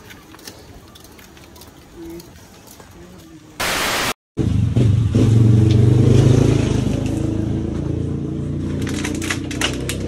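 Quiet outdoor ambience, then after an abrupt cut (a short hiss and a dropout about four seconds in), a motor vehicle's engine idles steadily close by, loud and low-pitched.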